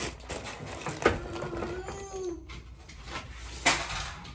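Plastic packaging crinkling and rustling as packages are handled, with a short whine about a second in and a loud thump of something set down near the end.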